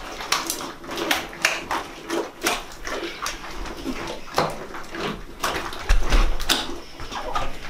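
Wet squelches and sticky slaps, several a second, as hands knead, pull up and slap down a large mass of homemade glue slime on a shower floor, with a louder thud about six seconds in.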